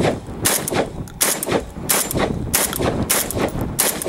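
Semi-automatic AK-pattern box-magazine shotgun fired in quick succession: about six shots, one every two-thirds of a second or so, each ringing out after the blast.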